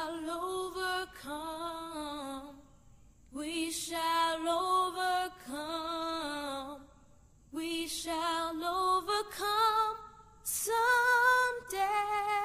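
A woman's voice singing a slow melody unaccompanied, in several long phrases of held, wavering notes separated by short breaths.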